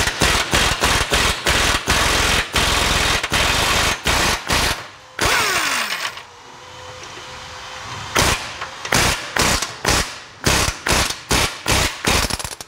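Pneumatic impact wrench hammering in a series of short trigger bursts, breaking loose the 19 mm bolt that holds the lower control arm to the body. It pauses for about two seconds in the middle, then starts again.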